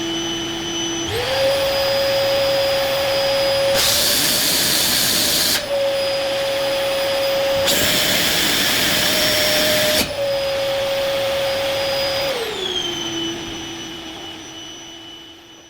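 LG 1600 W canister vacuum cleaner running: its motor whine steps up in pitch about a second in, holds higher, and falls back near the end as the load on it changes. Twice, in the middle, a loud rush of air lasts about two seconds. It fades out at the end.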